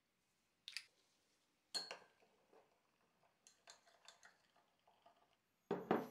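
Thin metal spatula stirring liquid in a glass beaker, tapping and clinking lightly against the glass, with two sharper clinks in the first two seconds and a louder knock near the end.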